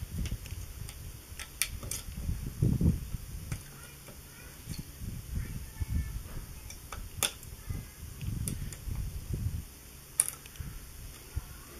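Hands working a raw whole chicken on a wooden cutting board: irregular soft low thumps with scattered sharp little clicks.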